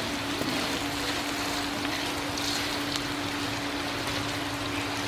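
Spice paste frying in oil in a wok, a steady sizzle, as a metal spatula stirs it around with lemongrass and leaves, giving a few light scrapes; a steady low hum runs underneath.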